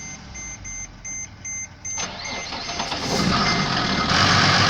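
Mercedes OM642 V6 diesel being cranked over with a repeating warning beep, firing more and more from about two seconds in, then catching and running steadily about four seconds in. It is a hard start, which the owner puts down to a failed injector nozzle.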